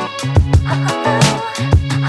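Background music with a steady beat: drum hits and bass under sustained melody notes.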